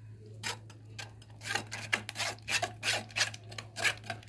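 Steel spoon scraping and pressing thick blended onion-tomato-cashew paste through a stainless steel mesh sieve, in quick rasping strokes about three a second.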